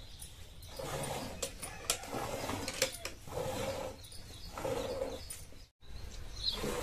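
Milk squirted by hand from a cow's teats into a nearly full steel bucket, hissing and splashing into the froth in short spurts, with a few sharp clicks. The sound drops out for an instant about six seconds in.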